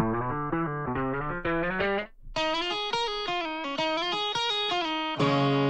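A guitar riff resynthesized by Steinberg HALion 7's Spectral Synth and triggered from a keyboard. It plays a run of plucked notes, breaks off briefly about two seconds in, plays another phrase, and ends on a lower held chord. The resynthesis gives it a kind of time-stretched quality.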